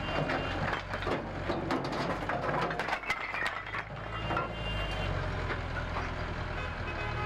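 Demolition clatter: a rapid, irregular run of cracks and knocks of breaking wood and debris for the first few seconds, over a heavy vehicle's engine running. The engine comes up stronger about five seconds in, around a reversing beeper.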